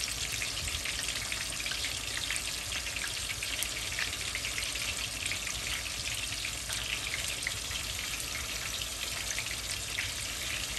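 Steady sizzling and crackling from a pot of Spanish rice cooking on the stove, with steam escaping, over a low hum.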